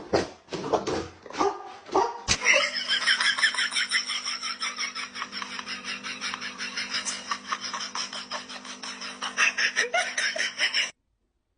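A dog barking and yipping in a fast, unbroken run. It cuts off abruptly near the end.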